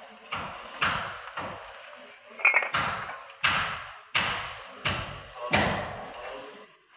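Bricks being tapped down into a fresh mortar bed with a mason's trowel: about ten sharp knocks at an uneven pace, roughly one every half second, one of them with a brief ring.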